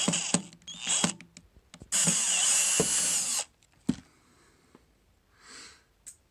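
Cordless drill-driver backing a screw out of a battery pack's case: a couple of short blips of the motor, then one steady run of about a second and a half with a whine, followed by a single knock.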